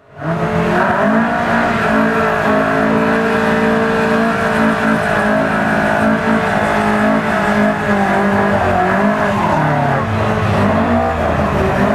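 Toyota pickup truck doing a burnout before a drag launch: the engine is held at steady high revs while the rear tyres spin and squeal. About nine seconds in, the revs drop and waver.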